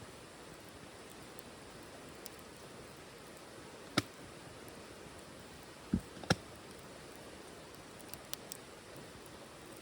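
Wood fire burning in a titanium wood stove: a steady low hiss with a sharp crackling pop about four seconds in, then a dull knock and another pop about two seconds later, and a few faint ticks near the end.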